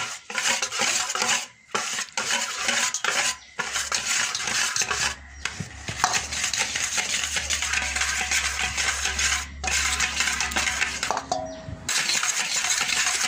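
Wire whisk beating margarine in a stainless steel bowl, the wires scraping and clinking rapidly against the metal, creaming the fat, with a few brief pauses.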